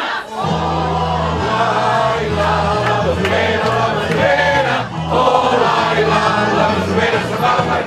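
A mixed group of men and women singing a song together, over steady low accompanying notes that begin about half a second in and change pitch in steps.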